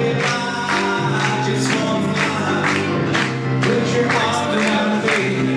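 Music with a singing voice over a steady beat of about two strikes a second.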